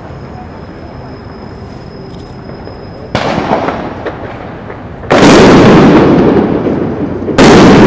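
Firecrackers going off at close range: three sudden, very loud bursts about three, five and seven seconds in, each a dense crackle that lasts a second or two and slowly fades.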